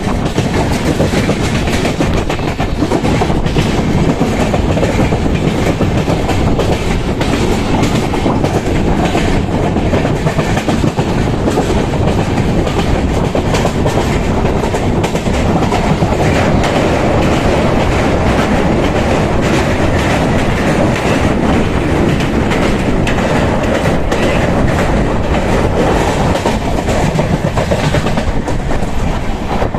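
Express passenger train running along the line, heard from aboard: a steady loud rumble with continual rapid clicking of the wheels over rail joints.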